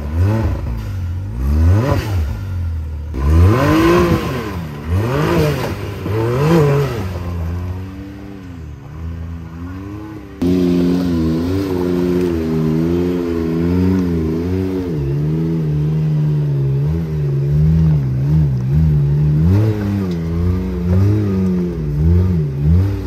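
A side-by-side's engine revving up and falling back in repeated bursts as it crawls over rocks. About ten seconds in, the sound cuts to a Can-Am Maverick R's turbocharged twin-cylinder engine running at low revs under load, its pitch wavering a little as it climbs a rock ledge.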